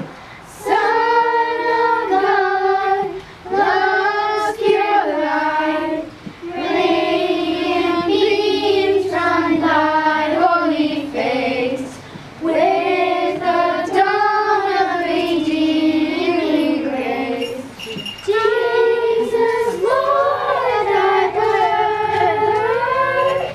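A group of young girls singing a Christmas carol together, in sung phrases broken by short pauses.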